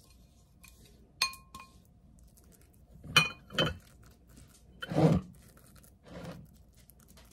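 A spatula and a glass mixing bowl clinking against a small ceramic loaf pan as batter is scraped in and spread: a ringing clink about a second in, two more clinks at about three and a half seconds, and a duller, louder knock about five seconds in.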